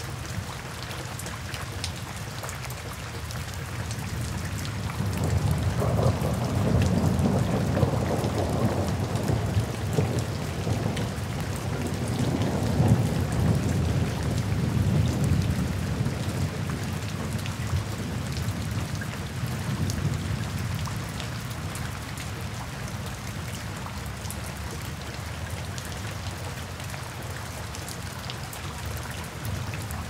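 Steady rain falling, with a long low rumble that swells about five seconds in and dies away by about twenty seconds.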